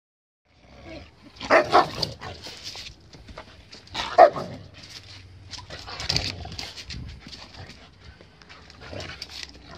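A husky-type dog and a young Rottweiler tussling, with sharp barks as one dog rebuffs the other's advances. Two loud barks come close together about one and a half seconds in and another about four seconds in, with quieter barks and scuffling between.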